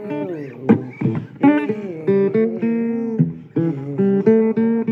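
Blues guitar playing an instrumental break: plucked single notes, several of them bent up or down in pitch.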